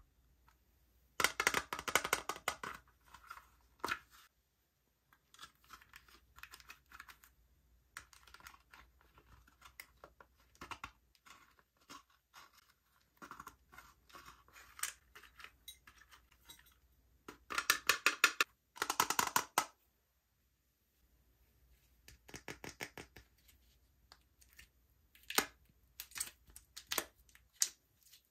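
Close-miked crackling of slime and its ingredients being pressed and worked by hand: quick runs of small clicks and pops, with two louder dense bursts, one about a second in and one past the middle, and sparser clicking between.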